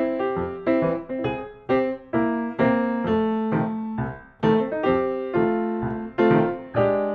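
Background music played on piano: a gentle run of single notes and chords at a steady pace of about two notes a second.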